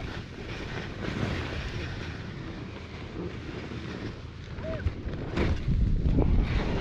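Wind rushing over the microphone of a camera carried while skiing, louder and heavier in the last second and a half or so.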